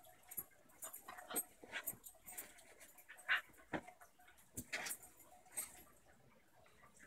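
Two dogs play-wrestling, a German shepherd puppy and an adult basenji–pit bull mix, with a string of short whimpers and scuffling sounds that die down near the end.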